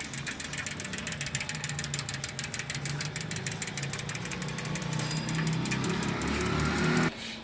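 A motor-driven machine running with a fast, even rattle over a low hum, which stops suddenly near the end.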